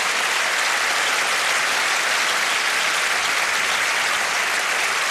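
Studio audience applauding steadily, a dense, even clapping from many hands.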